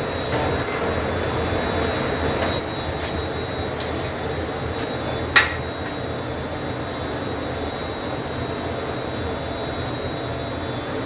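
Gas-fired glory hole and studio burners running with a steady rushing noise, a little louder in the first couple of seconds. One sharp metallic clink comes about five seconds in.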